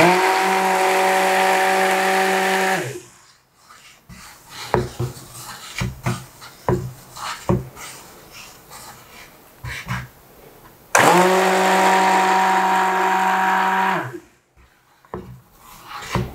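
Immersion stick blender pulsed twice in soap batter in a stainless steel saucepan, blending it toward trace. Each pulse is a steady motor whine lasting about three seconds that winds down when switched off: one at the start, one about two-thirds through. Between the pulses come light knocks and scrapes as the blender head is stirred around the pan.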